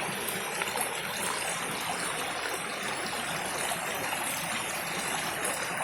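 Waterfall, water rushing and splashing in a steady, even hiss.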